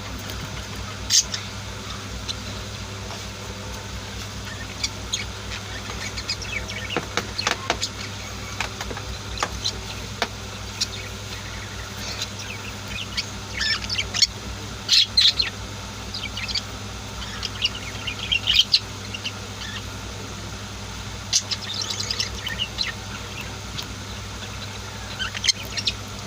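Pet budgies and lovebirds chirping, with short, scattered calls that come in clusters, over a steady low hum.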